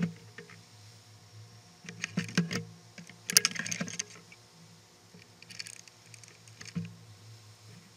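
Clattering clicks and knocks of gear being handled on a plastic sit-on-top pedal kayak as a hatch lid is lifted off. The clatter comes in bursts about two seconds in and around three and a half seconds, with a few fainter knocks later.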